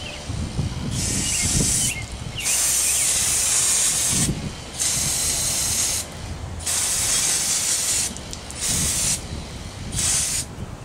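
Aerosol can of brake cleaner spraying in repeated hissing bursts, about six, each one to two seconds long with short pauses between, washing debris and oil off the thrust bearing inside an opened Sanden AC compressor.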